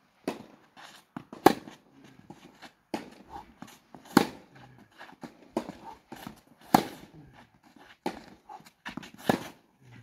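Tennis ball struck by a racket on groundstrokes in a baseline rally: four loud hits about two and a half seconds apart, with quieter knocks and footsteps on the clay court between them.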